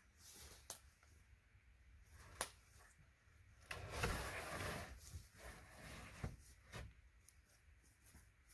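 A long wooden pole being pushed up onto a pole-built roof frame: faint wood-on-wood knocks, with a louder scraping rustle in the middle as the pole slides into place.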